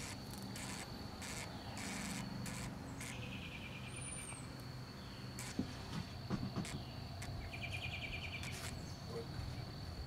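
Insects calling: a steady high-pitched buzz with two short trills, one about three seconds in and one near the end, and a single high bird chirp about four seconds in.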